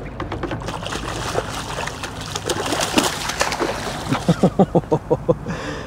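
A hooked fish thrashing at the surface beside a kayak, splashing and slapping the water. Near the end comes a quick run of about seven rapid knocks.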